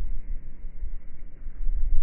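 Rolling thunder: a deep, uneven rumble that swells again near the end.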